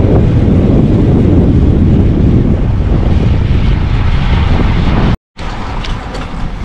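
Wind buffeting the microphone of a camera carried on a moving bicycle, a loud, steady rumble. It cuts off abruptly about five seconds in and comes back much quieter, with scattered light ticks.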